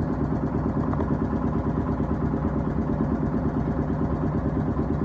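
A small boat's engine running steadily with a low, even throb.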